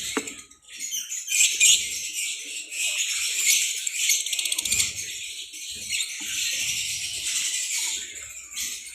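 Lovebirds chattering and chirping together in a steady high-pitched din, with occasional wing flutters.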